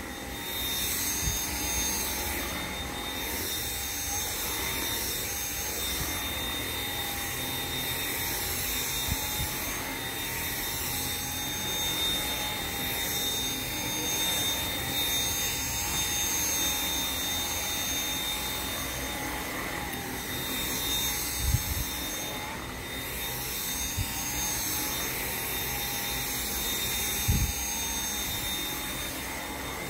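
Dyson V7 Motorhead cordless stick vacuum running steadily on carpet, a continuous suction noise with a steady high-pitched motor whine. A couple of short low knocks are heard in the second half as the head is pushed around.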